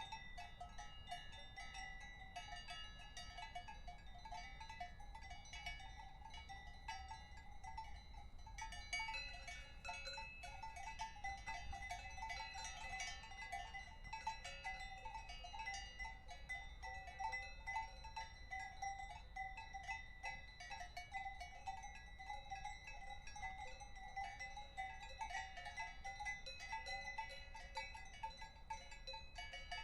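Cowbells clanking irregularly and without a break, several bells ringing at different pitches, as grazing cattle move. The clanking grows busier about nine seconds in.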